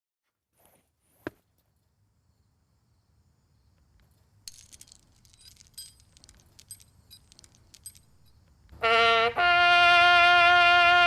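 A brass instrument begins playing about nine seconds in: a short note, then a long held note. Before it come several seconds of near silence with one sharp click and faint rustling and clicking.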